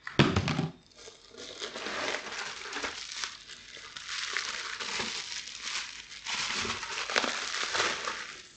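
Anti-static bubble wrap crinkling and rustling as a wrapped graphics card is pulled from its box and handled, after a brief knock and scrape of cardboard at the start.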